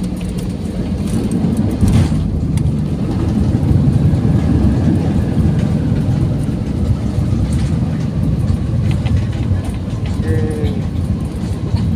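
Loud, steady low rumble inside the cabin of an Airbus A320-214 on its landing rollout: the CFM56 engines and the landing gear running on the runway. A sharp knock comes about two seconds in, and the rumble is at its loudest just after it.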